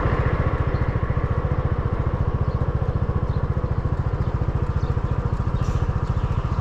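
A vehicle engine running steadily at a constant low speed, as at idle, with a rapid, even pulse.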